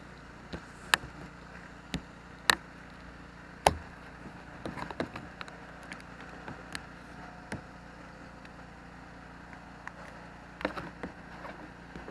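A scatter of sharp, separate clicks and knocks of hard objects, three loud ones in the first four seconds, then small clusters about five seconds in and near the end, over a steady low outdoor background.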